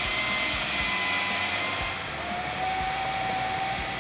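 Kenwood food processor motor running at speed, blending Oreo crumbs and cream cheese into a truffle dough. It makes a steady whine over a hiss, and the whine drops in pitch about halfway through.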